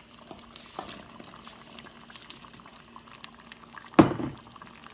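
Pot of curry chicken bubbling on the stove with many small pops, and a single loud knock about four seconds in as potatoes are tipped into the pot.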